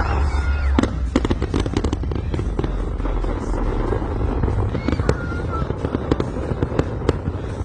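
Fireworks going off: many sharp cracks in quick succession over a continuous low rumble.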